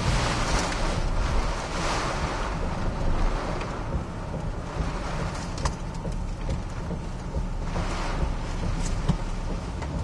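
Hurricane-force wind gusting hard around a truck, heard from inside the cab, with driving rain. The rush is strongest in the first couple of seconds, eases off midway and surges again near the end.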